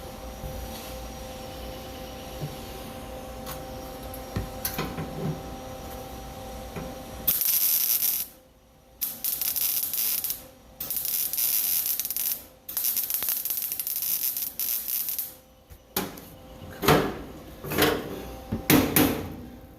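Arc welder laying short stitch welds on a truck's sheet-metal floor pan: four hissing, crackling bursts of one to two seconds each with short pauses between, starting about seven seconds in. A steady hum comes before them, and a few loud knocks of metal follow near the end.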